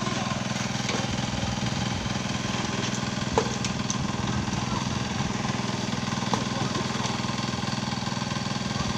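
An engine on a construction site running steadily at an even speed, with two sharp knocks: one about a third of the way in and one about two-thirds in.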